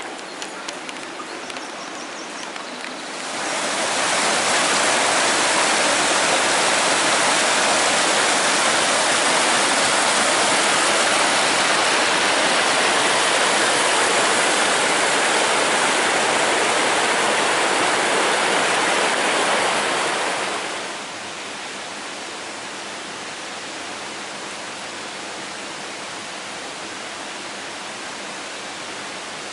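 Waterfall rushing in a steady, even roar of water. It swells much louder about three seconds in and drops back to a softer rush about twenty seconds later. A few faint clicks come in the first seconds.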